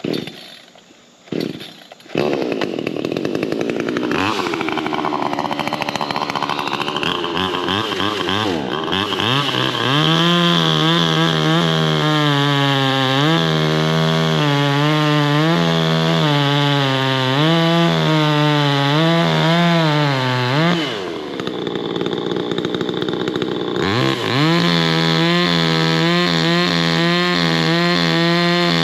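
VEVOR 58cc two-stroke gas chainsaw: two short bursts, then the engine catches at about two seconds and runs at high revs, its pitch rising and falling. About three-quarters of the way through the revs drop briefly, then it picks back up and runs steady and high.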